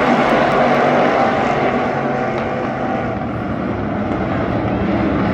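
A field of USRA stock cars racing in a pack, their V8 engines running together in a loud, steady drone that eases slightly midway and builds again near the end.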